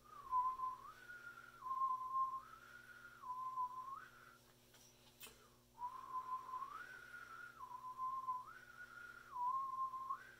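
A man whistling, the note stepping back and forth between a low pitch and one a little higher about every three-quarters of a second, in two phrases with a short break between. Each step up is made by lifting the tongue.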